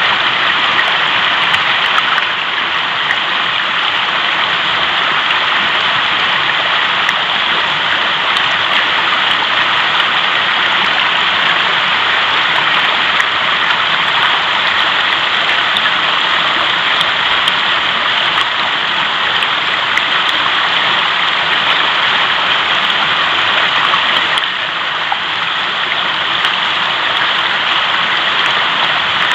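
Fast-flowing mountain river: a steady, unbroken rush of water, easing slightly about 24 seconds in.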